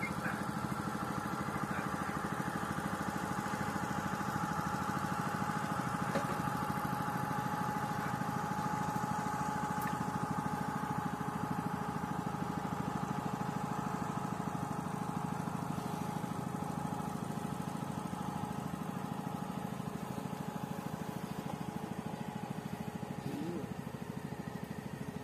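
Motor of a long wooden river boat running steadily at an even pitch as it crosses the river, slowly fading as it moves away.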